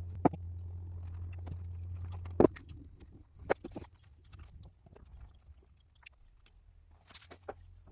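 Steady low electrical hum that cuts off with a sharp click about two and a half seconds in, among scattered light clicks and knocks of parts and tools being handled.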